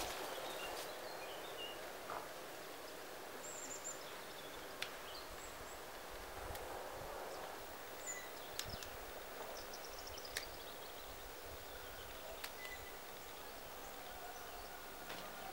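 Quiet garden ambience with faint, scattered bird chirps, and a few sharp clicks and leaf rustles as bell peppers are snapped off their plants by hand.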